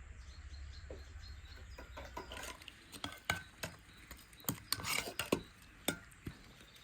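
Kitchen utensils clinking and scraping against dishes: a scattered series of light taps and clicks, busiest about five seconds in.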